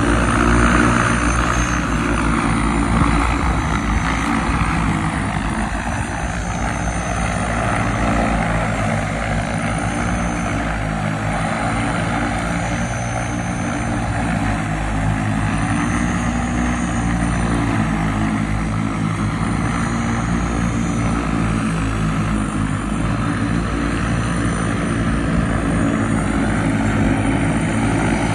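AirCar eVTOL prototype's eight electric motors and propellers running steadily as it hovers: a hum of several pitches under a rush of air.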